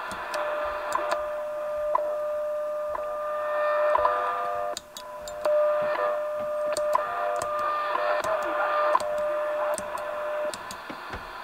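WWV shortwave time signal received in AM on a Yaesu FT-891 transceiver's speaker: a steady tone with a tick about once a second over static hiss. The signal comes up stronger about four seconds in as the attenuator sections are switched out, and the tone stops shortly before the end.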